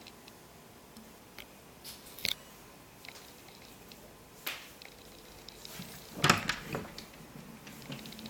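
A door being handled: a few faint, scattered clicks and knocks, with a louder cluster of knocks around six seconds in.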